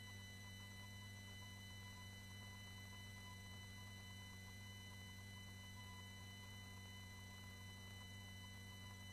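Near silence: a faint steady electrical hum with a few thin, steady high tones.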